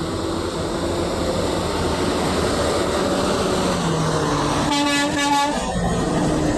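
Semi truck air horn sounding one blast about a second long, near the end, over a steady rumble of truck engines.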